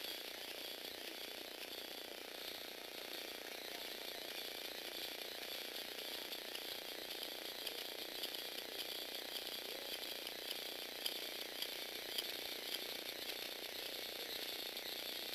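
Lego Technic six-legged walking robot running: its electric motor whirs steadily through a row of spur gears that drive the legs, with a few light clicks in the second half.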